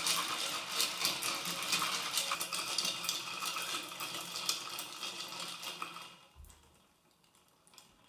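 Ice cubes clinking and rattling against a beaker as ice water is stirred with a thermometer probe. The stirring stops about six seconds in, leaving a single faint click near the end.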